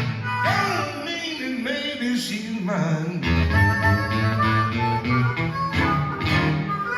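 A live acoustic blues band plays an instrumental passage led by guitar, with bent notes. The low end drops away briefly and comes back in full about three seconds in.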